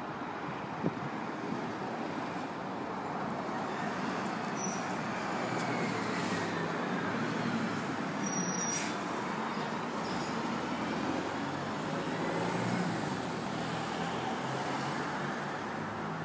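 Steady road traffic noise: vehicles running and passing, with a low engine hum beneath.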